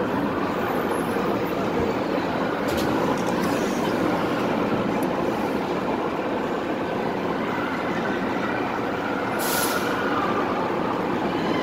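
Steady din of an indoor amusement park, with rides running all around. A short hiss comes about nine and a half seconds in.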